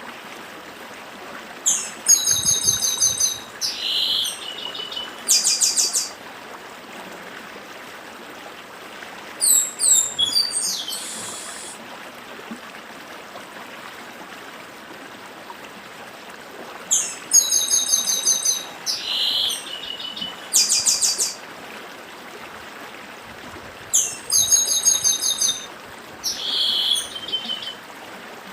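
Chestnut-capped blackbird (papa-arroz) singing in four bouts several seconds apart, each a quick run of high rattling and buzzy notes. A steady stream babbles underneath throughout.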